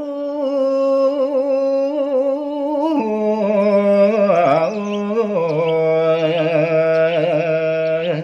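A man's solo voice singing Balinese gaguritan (tembang), holding a long melismatic note with a wavering, ornamented pitch. The note steps down about three seconds in and bends through more turns near the middle.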